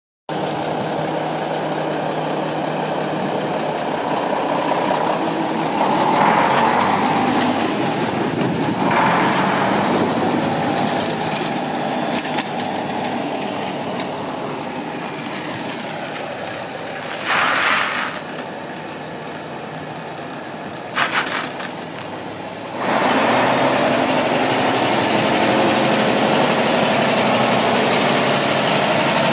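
Diesel engine of a 2000 Mack CH612 day cab tractor idling steadily. There are two short bursts of noise past the middle, and the sound steps up louder over the last quarter.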